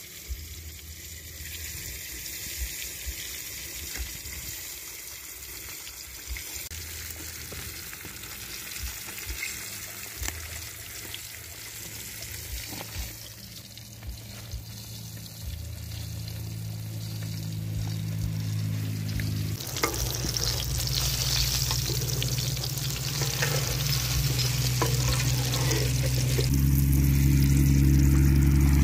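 Flour-dredged fish deep-frying in hot oil in a wok: a steady sizzle that comes in strongly about two-thirds of the way through and grows louder toward the end. Before that there are scattered light clicks and taps.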